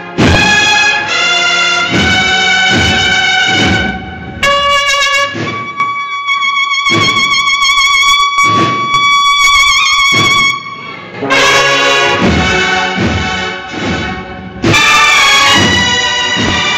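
Banda de cornetas y tambores (cornet and drum band) playing a Holy Week processional march: full brass chords over drum strokes, then about four seconds in a single high note held for some six seconds over the drums, before the full band comes back in.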